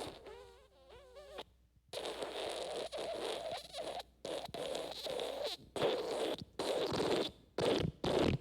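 Cartoon wet fart sound effect. It opens with a short fart whose pitch wavers up and down, then after a brief pause comes a long wet, sputtering fart that breaks into quicker and quicker short spurts near the end.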